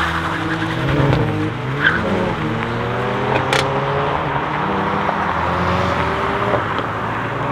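Hyundai i30 N's 2.0-litre turbocharged four-cylinder accelerating hard with some tyre squeal from wheelspin, its engine note rising. Two sharp exhaust pops come about two and three and a half seconds in.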